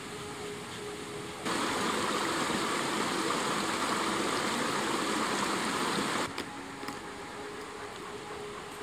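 Rushing mountain stream: a steady, even water noise that starts suddenly about a second and a half in and cuts off about six seconds in.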